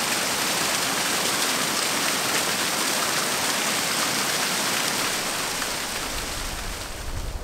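Small hot-spring waterfall splashing steadily into a rocky pool, a continuous rushing hiss. It eases a little near the end as a low rumble comes in.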